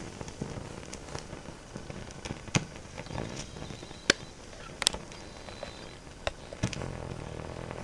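A fire crackling: irregular sharp pops and snaps of varied strength over a steady hiss, with several louder pops a second or so apart near the middle.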